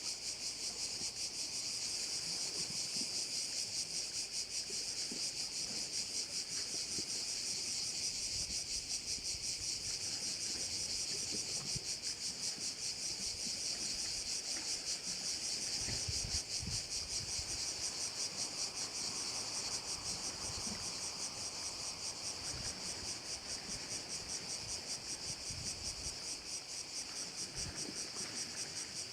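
Dense, continuous chorus of singing insects: a steady high buzz with a very fast pulsing texture.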